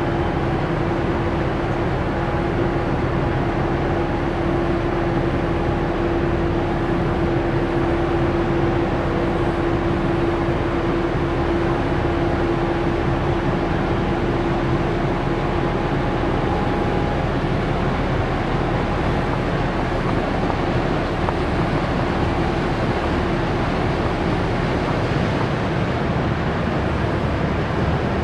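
Cargo ship's diesel engine running steadily at low speed. It gives a constant noise under a steady hum that weakens after about fifteen seconds.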